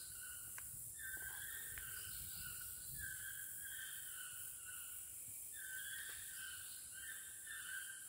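Lowland tropical rainforest ambience: a short pitched animal call repeats about once a second over a steady high hiss.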